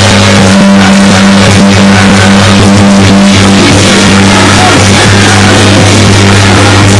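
Loud instrumental music, dense and unbroken, over a steady low hum.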